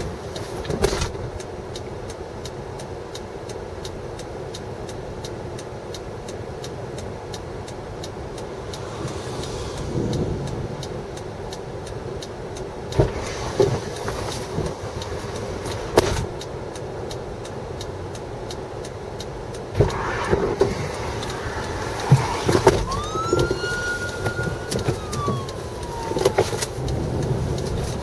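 Steady rushing outdoor background noise with scattered sharp knocks. About 23 seconds in, a siren wails once, rising quickly, holding briefly, then sliding down in pitch.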